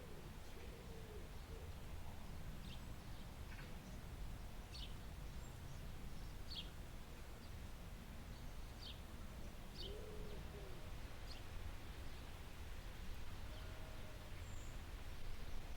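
Wild birds calling: short high chirps every second or two, and a lower arching call twice, near the start and about ten seconds in, over a steady low rumble.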